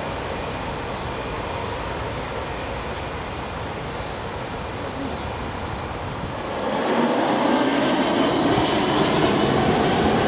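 Airbus A320-family jet airliner engines during approach and landing: a steady jet rush, then from about six seconds in a louder jet roar with a high engine whine on top.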